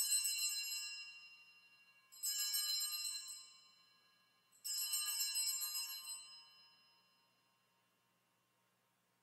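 Altar bells (a cluster of small sanctus bells) rung three times, each shake ringing out and fading over a couple of seconds. This marks the elevation of the consecrated host at Mass.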